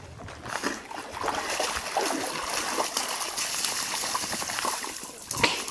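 A German shepherd splashing through shallow lake water as it comes ashore, then shaking itself dry and flinging off a spray of droplets.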